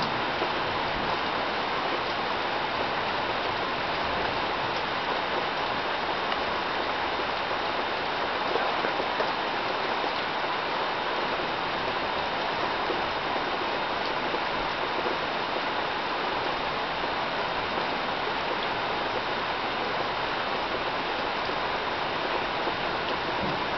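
Rain falling steadily during a thunderstorm, an even hiss without breaks.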